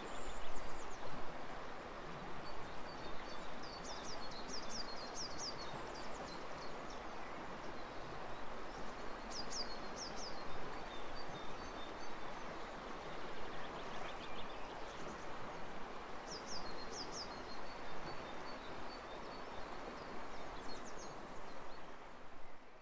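Steady outdoor background noise, an even rushing hiss, with a small bird singing three short bursts of quick, high chirps.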